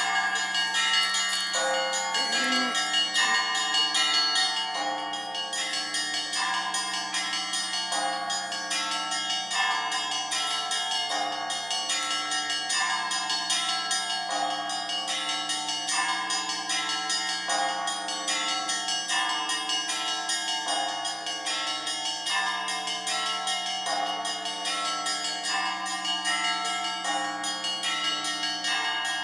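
A set of church bells ringing together in a continuous peal, many bells of different pitches struck in a rhythmic pattern that repeats about every second and a half.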